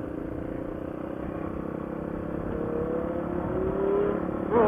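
Motorcycle engine running under way, its pitch climbing steadily from about halfway through as the bike accelerates, dipping briefly near the end before the throttle opens hard again.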